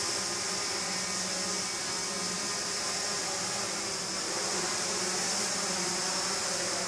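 Several small quadcopter drones flying together, their propellers buzzing in a steady many-pitched whine whose tones waver slightly as the rotors adjust.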